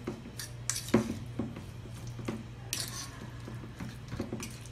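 A metal fork clinking and scraping against a stainless-steel bowl as guacamole is stirred: irregular taps, the sharpest about a second in, with a short scrape near the three-second mark.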